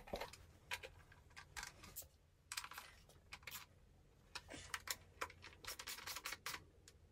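Faint, irregular light clicks and taps of a plastic motorcycle front mudguard being fitted by hand, with parts and tools handled.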